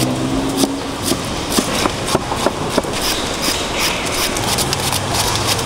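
Knife chopping through a peeled pineapple and knocking on a plastic cutting board in a string of sharp, irregular strokes, over steady background noise. A low steady hum sounds at the start and again near the end.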